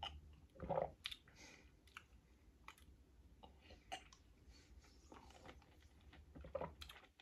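Faint mouth sounds of a man drinking from a bottle: scattered short gulps, swallows and clicks, the loudest about a second in, with a few more near the end as he tastes it.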